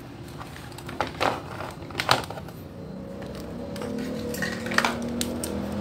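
Handling noise from a TV circuit board and an analog meter being moved on a workbench: a few light clicks and knocks, with a faint steady tone coming in around the middle.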